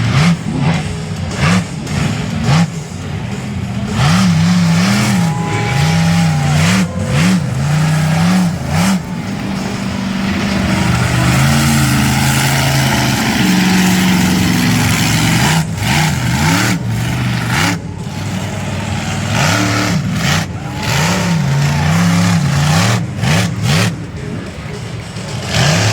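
Monster truck engine revving hard in quick repeated surges, pitch climbing and dropping, with a steadier stretch of sustained throttle in the middle.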